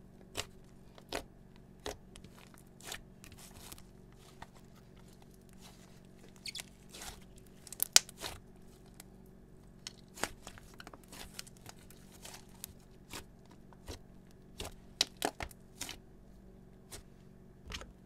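Thick slime being kneaded, folded and poked by hand: irregular sticky pops and crackles as it presses and pulls apart, the loudest about eight seconds in.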